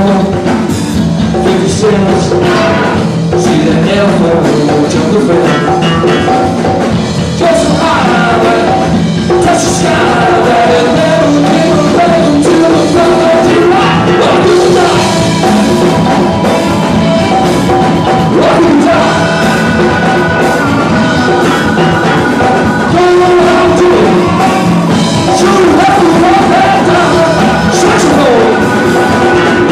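Live funk band playing: drum kit, congas, electric guitars and saxophone together in a steady groove.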